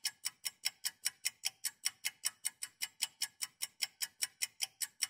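Clock-ticking sound effect running fast, about six or seven even ticks a second: the sped-up clock that marks time passing.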